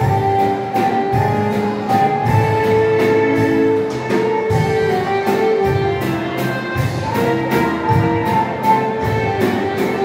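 A waltz played by a dance band: held melody notes over a steady beat.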